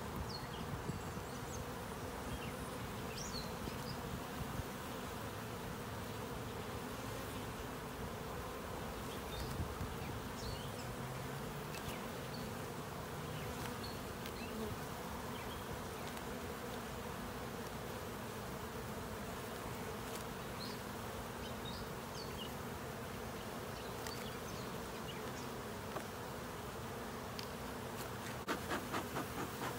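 Honey bee colony buzzing steadily from an open hive, with occasional faint clicks of wooden frames being handled. Near the end, a quick run of puffs from a bee smoker's bellows, about three a second.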